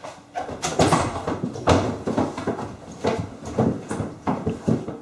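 A run of irregular knocks and thuds, about a dozen sharp hits spread unevenly over a few seconds, some with a short ringing tail.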